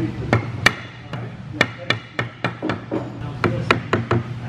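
Mallet tapping repeatedly on a flintlock longrifle kit clamped in a bench vise: a string of about fourteen light, sharp knocks at an uneven pace, roughly three a second, as the barrel is worked into its stock inlet.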